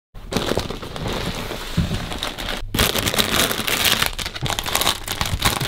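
Plastic snack packets crinkling and rustling as they are handled and rummaged through in a bag, with a brief pause about halfway.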